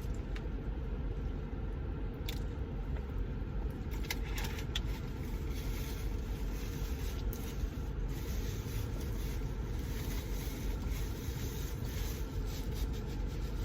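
Eating sounds inside a car's cabin: scattered small clicks, scrapes and crunches from chewing and handling food, over a steady low rumble.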